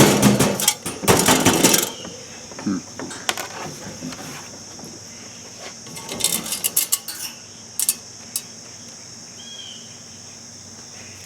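Small metal parts clattering and clinking as a fan motor is handled and reassembled, loudest in the first two seconds, with scattered clicks again about six to eight seconds in.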